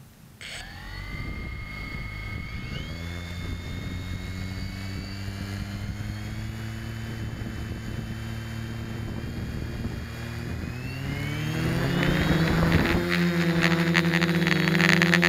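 DJI F450 quadcopter's four brushless motors and propellers spinning up with a sudden whine about half a second in, then running steadily at idle. Near the end they are throttled up, the whine rising in pitch and growing louder. Heard close, from a camera mounted on the frame.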